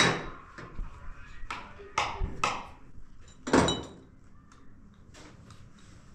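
A few sharp knocks and clinks, the loudest about three and a half seconds in with a brief ringing tone, then quiet room tone.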